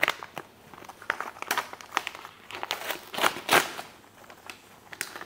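Wrapping paper crinkling and crackling as it is torn open by hand from a small boxed gift, in irregular bursts that are loudest past the middle.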